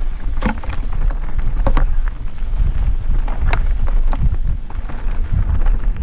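Mountain bike descending a rocky, gravelly singletrack: tyres crunching and the bike rattling, with scattered sharp clicks and knocks as it goes over stones. Underneath is a heavy, steady rumble of wind on the camera microphone.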